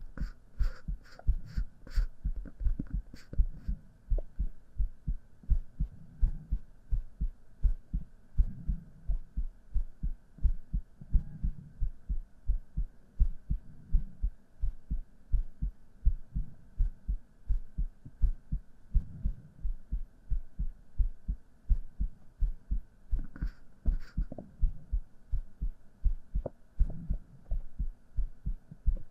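Human heartbeat heard close up as a steady run of soft, low thumps repeating evenly.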